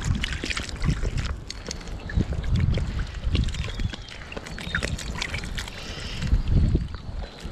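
Wind buffeting the microphone in uneven gusts, over small waves lapping and splashing close by with many irregular little slaps.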